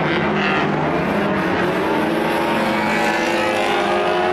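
Several 1500 cc banger racing cars' engines revving hard together, their pitch climbing over the middle of the stretch as the cars push and jostle each other.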